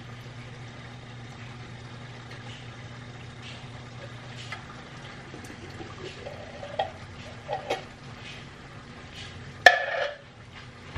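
A knife scraping and tapping a small metal can held over a stainless steel pot to empty it, with a few ringing metallic taps and then one loud metal clank about ten seconds in, over a steady low hum.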